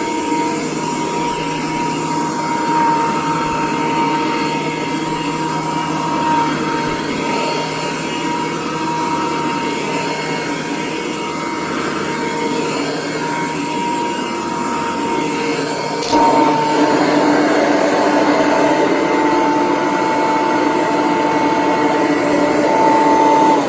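Kirby 513 upright vacuum cleaner's motor and fan running steadily with a high-pitched whine. A sharp click comes about two-thirds of the way through, after which it runs slightly louder.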